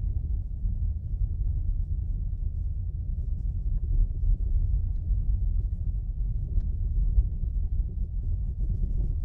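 Nissan Almera Classic on the move: steady low road rumble with a few faint knocks from the front suspension. The owner puts the knocking down to the suspension spacers.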